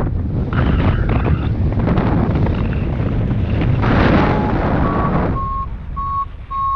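Strong wind buffeting the microphone in flight, a loud low rumble that eases near the end. About four seconds in, a paragliding variometer starts beeping: a run of short tones about every half second, the first a little lower in pitch than the rest, the vario's climb tone signalling lift.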